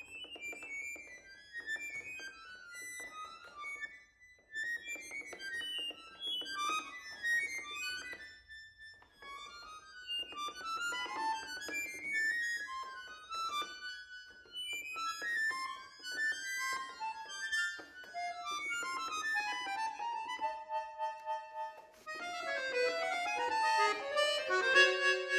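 Solo accordion playing rapid, scattered high-register figures over rhythmic bellows pulses. Near the end it settles into sustained chords held and built up in the middle register.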